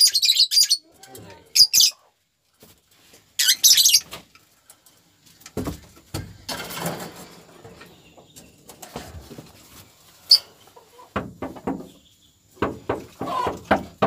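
Young lovebird held in the hand, giving loud, shrill squawking calls in three bursts over the first few seconds. Softer rustling and knocks of handling follow.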